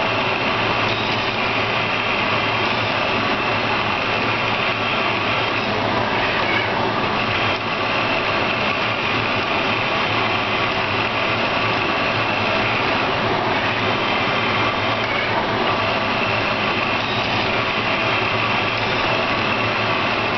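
Hydrogel 3D printer's stepper motors whirring steadily as the syringe extruder moves over the dish, with a few whining tones that shift slightly every few seconds.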